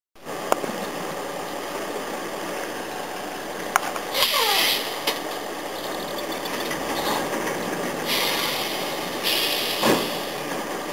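Crawler crane's engine running steadily, with three loud hisses from its machinery about 4, 8 and 9½ seconds in. There are a few sharp clicks and a short falling squeal around 4 seconds.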